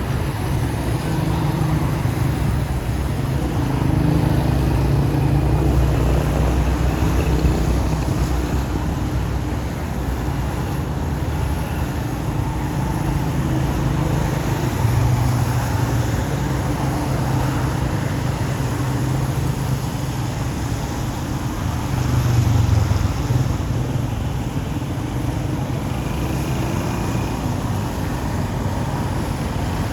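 A motor engine running, a steady low rumble whose pitch drifts up and down slightly.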